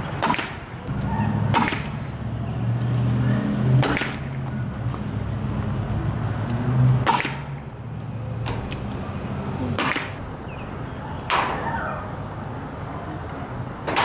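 About seven sharp shots from an air-powered staple gun, a second or more apart, driving staples through welded-wire mesh into the wooden frame. A low droning hum runs under the first half and fades out about eight seconds in.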